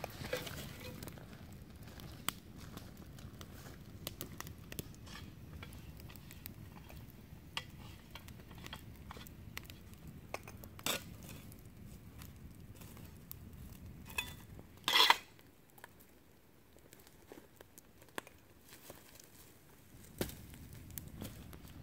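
Wood campfire burning with a low steady rush and scattered crackling pops, mixed with occasional metal clinks and scrapes from a folding steel military shovel. The loudest sound is a short scrape about fifteen seconds in.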